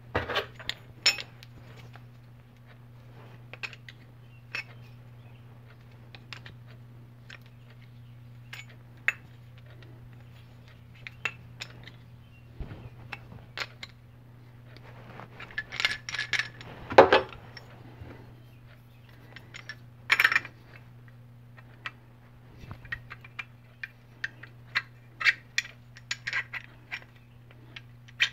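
Small metal parts clinking and tapping against each other and the bench as an aluminium adapter, rotary encoder and hand tools are handled and fitted together: scattered light clicks, with a louder clatter about halfway through. A faint steady hum lies underneath.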